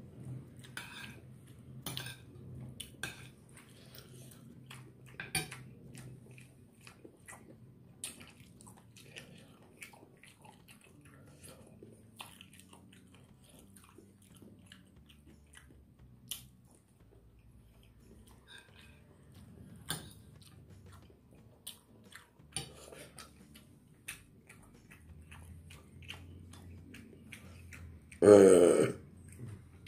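Eating sounds: chewing, with a metal spoon clicking and scraping on a ceramic plate. Near the end comes one loud, drawn-out burp.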